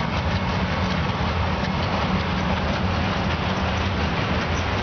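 Train running across a steel truss railway bridge: a steady rumble of wheels and running gear with a constant low hum underneath.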